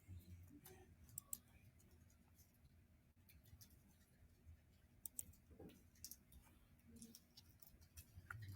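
Near silence with faint, scattered clicks and crackles: communion cups being taken out and handled.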